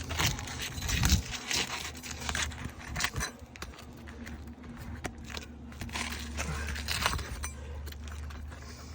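Asphalt roof shingles being handled and lifted by hand, giving a run of irregular crackles, scrapes and clicks, with a steady low hum underneath.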